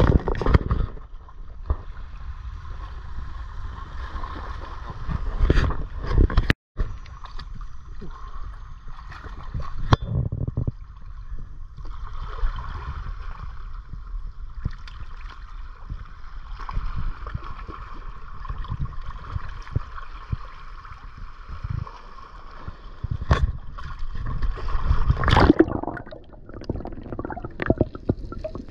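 Sea water sloshing and gurgling, with several louder splashes.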